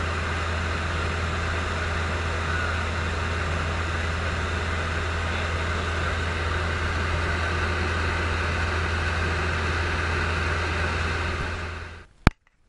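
Robin DR400 light aircraft's piston engine and propeller droning steadily in cruise flight, heard inside the cabin. The drone cuts off abruptly near the end, followed by a single sharp click.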